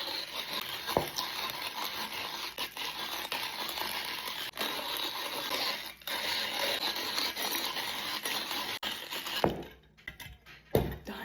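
Hand-cranked burr coffee grinder on a mason jar crushing whole coffee beans: a continuous gritty crunching that stops about nine and a half seconds in. Two sharp knocks follow near the end.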